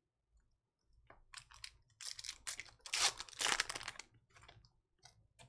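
Foil trading-card pack crinkling and tearing as it is opened by hand, a run of crackling rustles over a few seconds.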